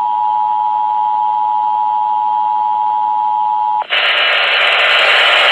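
Emergency Alert System two-tone attention signal (853 and 960 Hz together) played over a radio, a steady dual tone that cuts off abruptly about four seconds in. It gives way to a loud, even hiss of radio static.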